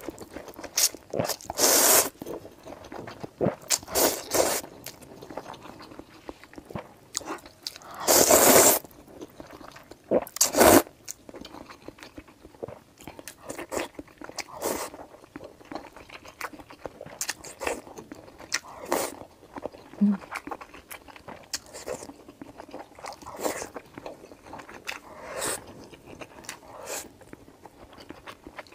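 Close-up eating sounds: a few loud slurps of noodles in the first ten seconds or so, then steady chewing with soft crunching and small clicks as she eats pieces from the bowl with rice.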